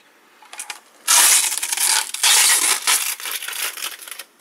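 Plastic wrapping on a graphics card crinkling and crackling as it is pulled and crumpled by hand. It is quiet at first, then loud, dense crinkling starts about a second in and trails off into smaller crackles.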